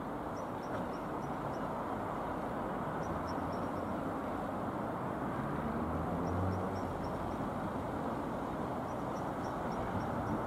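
Dassault Falcon 20 jet passing overhead: a steady rush of jet engine noise that swells slightly in the middle.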